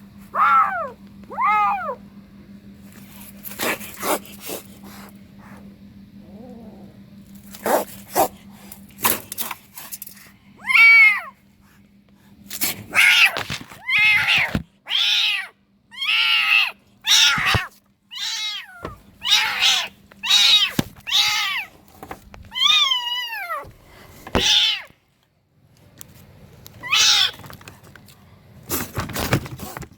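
Kitten meowing again and again: two meows at the start, then a long run of loud meows about one a second through the middle, and one more near the end, with scattered knocks and clicks between.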